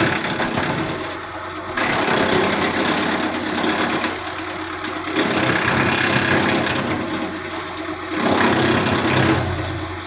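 Hydraulic wood chipper running on its engine, with louder spells of grinding noise lasting a second or two, about every three seconds, as wood goes through.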